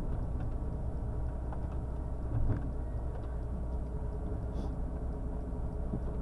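Truck's engine and road noise while driving: a steady low rumble.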